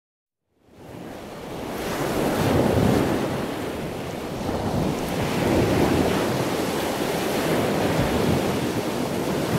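Ocean surf: waves washing in and drawing back, swelling and easing every few seconds. It fades in from silence about half a second in.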